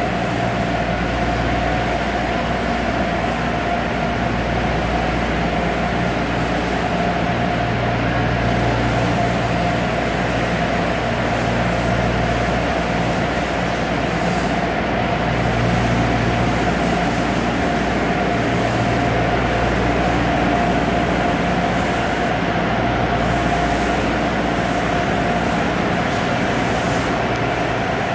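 A steady mechanical drone with a constant mid-pitched tone over a low rumble, unchanging throughout.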